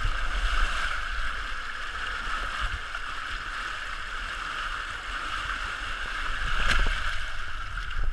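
Muffled rush of a fast river current with water sloshing against a camera held at the surface, a steady hiss with irregular low knocks and one sharp knock near the end.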